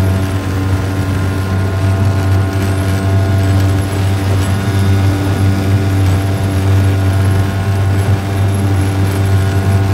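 Stock 5 hp two-stroke outboard motor running flat out at full throttle, holding one steady pitch as it pushes a heavy boat at top speed.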